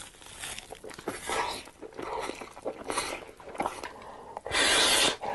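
Close-miked mukbang eating sounds: wet chewing and mouth smacking on noodles and meat, with a loud noodle slurp lasting about half a second near the end.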